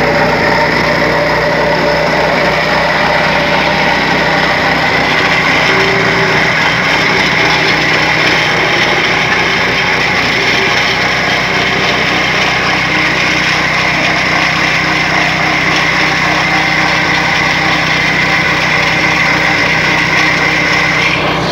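Plate compactor's Honda GX single-cylinder four-stroke petrol engine running steadily as the plate works over gravel.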